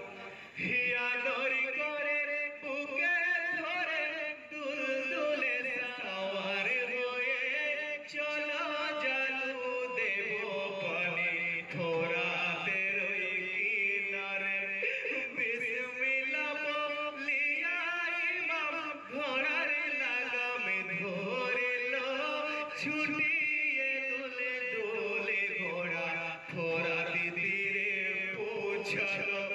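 Men chanting a Bengali marsiya, a mourning elegy for the martyrs of Karbala, in long melodic phrases with wavering pitch.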